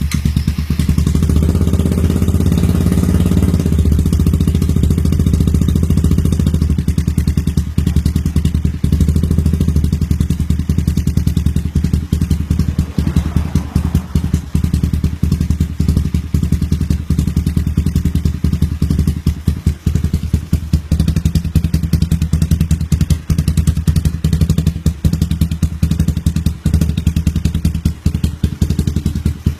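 Honda CBR150 single-cylinder four-stroke engine, swapped into a Honda Supra 125 underbone, running steadily on the stand with a fast, even exhaust beat.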